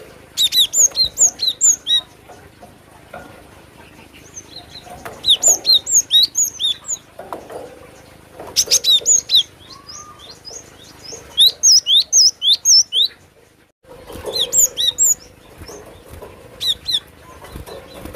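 Cinereous tit (glatik batu) singing: repeated bouts of quick, high, chirping notes, each bout about a second long, with short pauses between.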